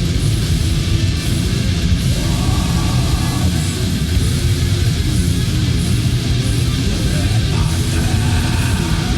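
War metal: dense, distorted electric guitars and a heavy low end playing without a break.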